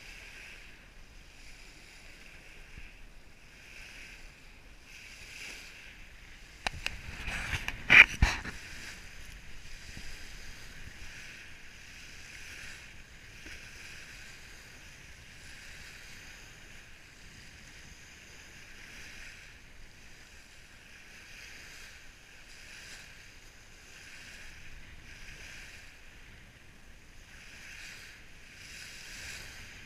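Small waves washing up and back over a pebble beach, swelling and fading every second or two. A brief cluster of sharp knocks comes about eight seconds in.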